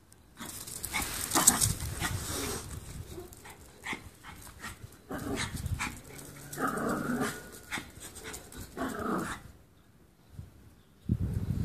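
Small dogs growling at a cat in several short, rough bursts, with a few brief pitched growls in between.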